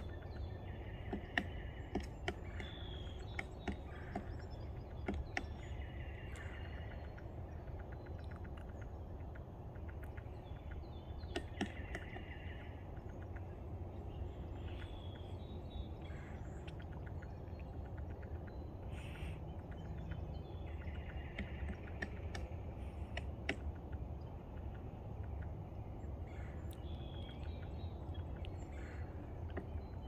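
Pileated woodpecker striking a rotting log: scattered, irregular sharp knocks as it excavates the wood. Other birds sing short repeated phrases over a low background rumble.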